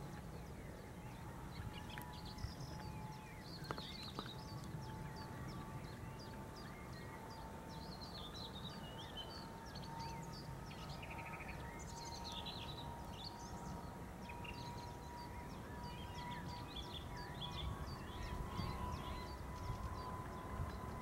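Birds chirping over the steady whine of a distant twin-engine jet airliner's engines spooling up for take-off, the whine slowly rising in pitch above a low rumble.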